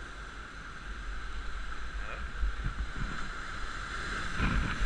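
Sea surf breaking and washing over shoreline rocks, with wind rumbling steadily on the microphone; a short louder rush comes near the end.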